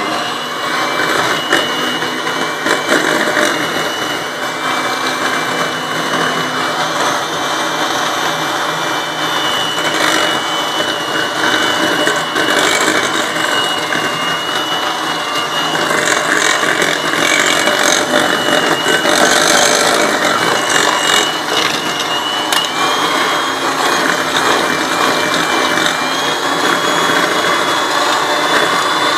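Electric mixer running steadily, creaming butter and sugar until fluffy, with a thin high whine over the motor noise.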